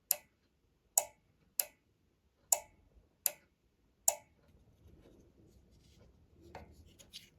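New replacement relay clicking as it switches: six sharp clicks over about four seconds at uneven spacing, then faint handling noise near the end. The clicking shows that this relay works, unlike the defective one it replaced, which made no click.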